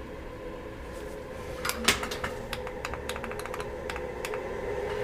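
Computer keyboard keys clicking: two louder clicks, then a quick run of keystrokes. A steady hum lies underneath.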